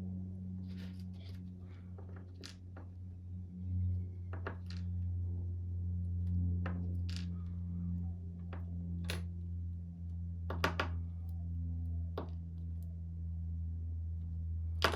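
Small metal clicks and taps of a Medeco Biaxial camlock being taken apart with a flat-head screwdriver, scattered irregularly, over a steady low hum.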